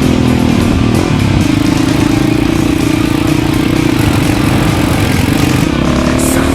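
Dirt bike engine running at steady revs, its pitch held level for several seconds.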